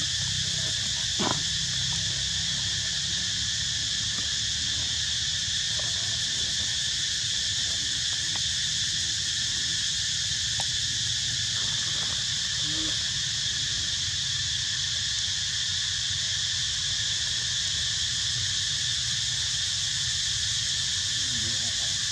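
Steady, unbroken drone of insects in high bands over a low rumble, with one short click about a second in.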